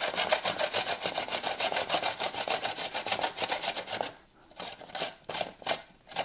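Cucumber being grated on a hand grater: quick, even rasping strokes that stop about four seconds in, followed by a few more strokes before the end.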